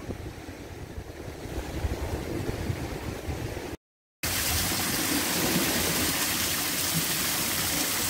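Surf breaking on a rocky shore, a low, uneven rumble. After a brief dropout to silence a little under four seconds in, a small waterfall splashes steadily down over rock as an even rushing hiss.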